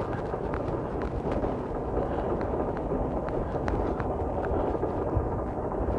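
Motorcycle riding slowly down a steep, rough road: a steady low rumble of the bike and wind on the microphone, with scattered sharp clicks and rattles.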